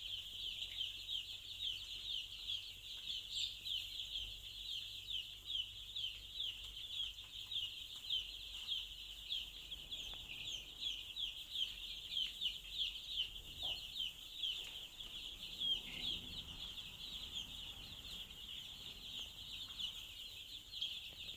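A flock of five-day-old chicks peeping continuously, many short high-pitched cheeps overlapping several times a second.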